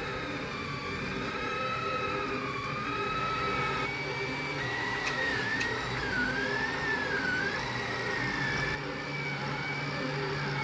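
Delta 3D printer running: its stepper motors whine in tones that glide up and down as the print head moves in curves, shifting higher about four and a half seconds in, over a steady hum.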